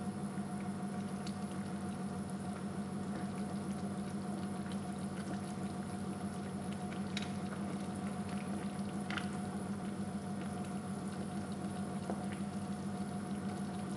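Cream and cheese sauce simmering in a pan on a low flame: a steady, soft bubbling, with a couple of faint clicks partway through.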